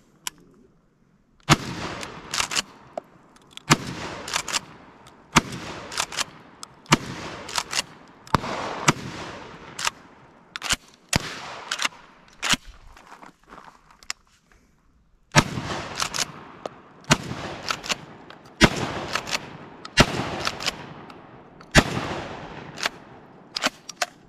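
Benelli SuperNova 12-gauge pump-action shotgun fired in a steady string, a shot about every second and a half, each blast followed by a rolling echo and the sharper clack of the pump being racked. There is a pause of about two seconds midway before the firing resumes.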